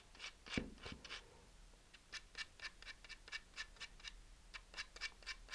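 Fine-grit sandpaper on a sanding stick rasping in short strokes, about four a second, against the end of a small aluminum tube. The end is being smoothed into a low-friction bearing surface.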